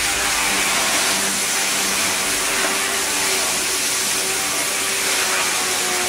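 Wood-processing machinery running with a steady hissing noise and a faint hum, no separate cuts or knocks standing out.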